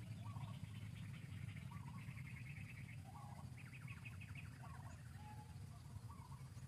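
Faint birdsong: bursts of rapid trilled chirps and short repeated notes, over a steady low hum.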